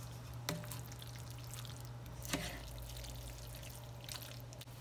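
A utensil stirring creamy linguine in a skillet: faint wet stirring sounds, with two light knocks against the pan, about half a second in and a little past two seconds in. A steady low hum runs underneath.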